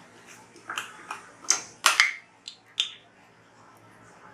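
A run of sharp, irregular clicks and light taps of kitchen utensils, about seven or eight over three seconds, then quiet background.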